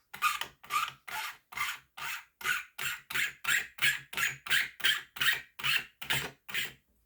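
Hand sanding: quick back-and-forth rubbing strokes, about three a second, taking down an uneven edge, which stop near the end.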